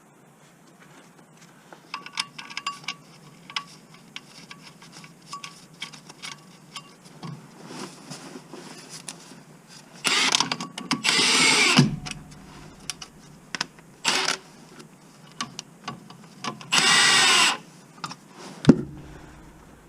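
Cordless power tool run in two short bursts, one about ten seconds in and a shorter one near the end, its motor pitch shifting as it works a fastener, between scattered clicks and knocks of hand tools on metal.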